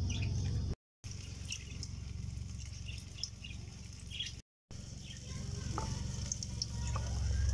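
A steady low hum with faint, scattered high chirps over it, cutting out completely twice for a moment.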